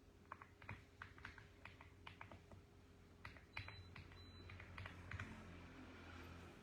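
Faint typing on a mechanical keyboard: irregular key clicks in quick runs with short pauses, thinning out near the end.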